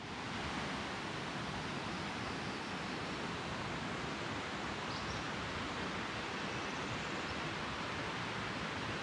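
Steady rush of flowing water from a mountain creek, an even noise with no change in level.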